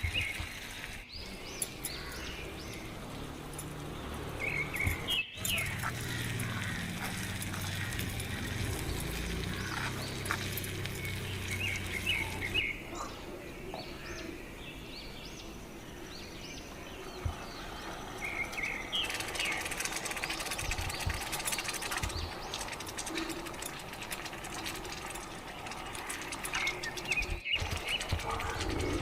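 Small birds chirping now and then over steady outdoor background noise.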